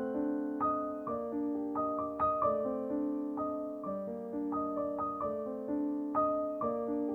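Soft background piano music, a slow melody of held notes struck about twice a second.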